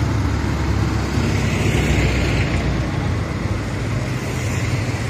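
Road traffic going by: a steady rumble of engines and tyre noise, with one vehicle swelling up and passing about two seconds in.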